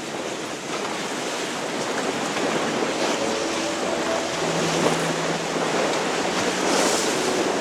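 Steady rush of water and wind noise from a moving boat, growing slightly louder, with faint held tones underneath.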